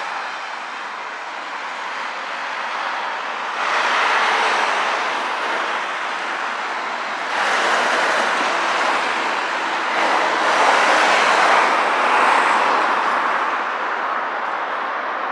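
City street traffic: a steady rushing noise of passing vehicles that swells several times as they go by.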